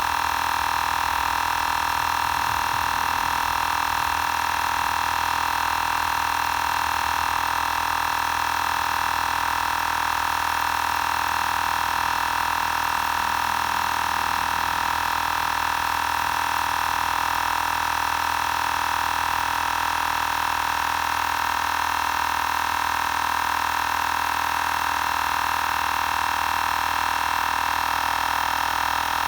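Xiaomi Portable Electric Air Compressor 2 running steadily, a constant high-pitched drone as it pumps air into a tyre.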